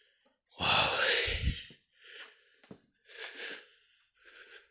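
A man's hard breathing, short breaths about one a second, winded from climbing several flights of stairs.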